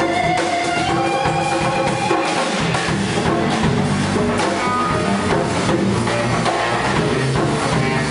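Live instrumental band music: electric guitar over a drum kit, bass and congas, with a steady drum beat.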